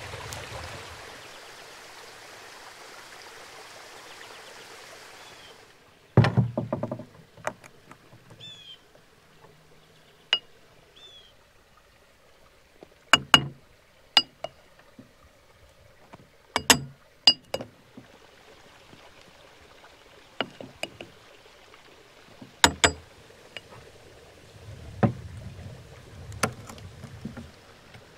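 Cookware and utensils handled during food preparation: a steady rushing noise for about the first five seconds, then a string of sharp clinks and knocks, several of them ringing briefly like metal or glass, with a few dull thuds. A bird chirps faintly a couple of times.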